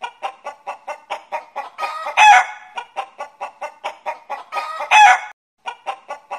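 A chicken clucking quickly and evenly, about five clucks a second. Twice it breaks into a louder short call, about two seconds in and about five seconds in. The pattern drops out briefly and then repeats.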